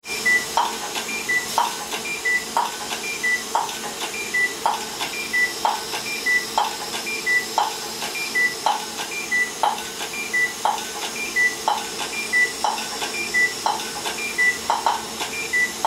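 Dental laser firing in a steady rhythm: a short high beep about once a second, each followed by a sharp pulse, over a steady hiss.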